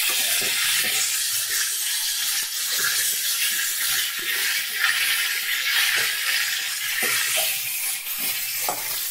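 Potatoes and cauliflower frying in mustard oil in a kadai, a steady sizzle, with a perforated metal spatula scraping and clicking against the pan a few times as the vegetables are turned.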